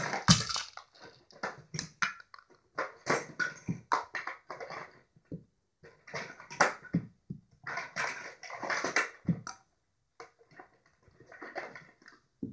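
Plastic toy pieces clattering and knocking as they are dropped into a plastic toy bucket and rummaged about in it, in a string of irregular clattering bursts with short pauses between them.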